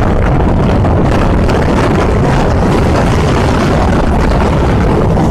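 Steady, loud rumble and rush on the open deck of a Star Ferry: the ferry's engine drone and the wash of water, with wind buffeting the microphone.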